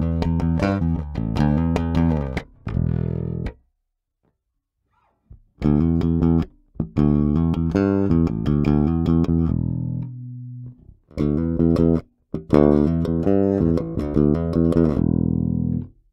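Five-string electric bass with EMG active pickups, a Schecter Riot Session 5, played fingerstyle and heard through a direct DI feed with no amp or room sound, EQ flat. The first riff is on the neck pickup alone; after a pause of under two seconds, the phrases that follow are on both pickups blended.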